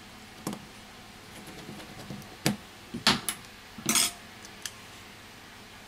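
A handful of sharp clicks and light clatters of small hard parts and a tool handled on a work mat, bunched in the middle. The last and longest clatter, about four seconds in, comes as the glass back cover of a Huawei P8 Lite 2017 is laid onto the phone's frame.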